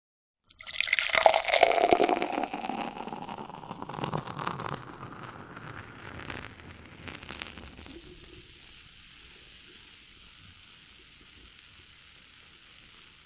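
Rushing water that starts suddenly, loud and churning for the first couple of seconds, then settles into a steady hiss that slowly fades.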